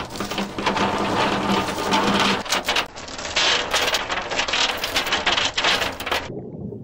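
Steel anchor chain rattling and clattering quickly as it runs out over the side of a narrowboat, link after link, then stops abruptly shortly before the end.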